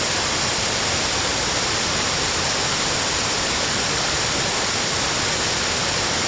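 Loud, steady rush of a fast-flowing river.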